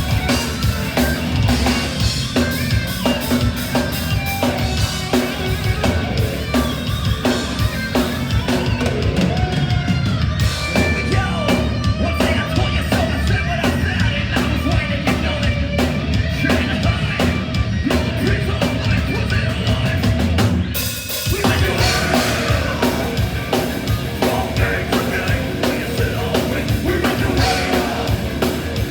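Live metal band playing loud, with pounding drums and kick drum under heavy guitars, recorded in the venue. The band stops for a brief break about two-thirds through, then comes back in.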